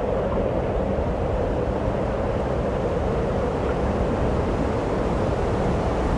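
A steady rushing, rumbling noise with no clear pitch, even in level throughout.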